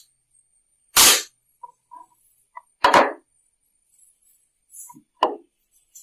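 Three sharp metal knocks about two seconds apart, with a few faint clinks between: hand tools and parts striking the metal of a sewing machine as its underside is taken apart.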